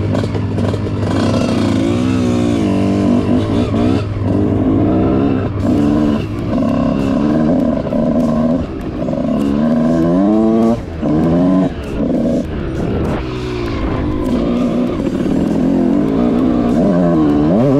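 Small Kawasaki KX two-stroke motocross bike's engine revving up and falling back over and over as it is ridden through the lower gears, heard close from the rider's helmet. The engine is still being run in.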